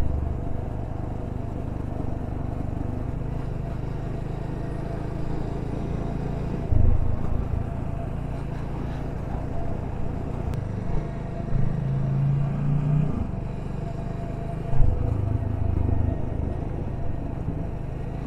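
TVS Apache 200 4V's single-cylinder engine running on the move, a steady low rumble that swells briefly a few times.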